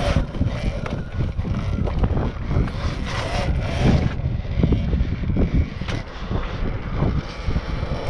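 Wind buffeting the microphone in an uneven low rumble while an Apollo RFN electric dirt bike is ridden along.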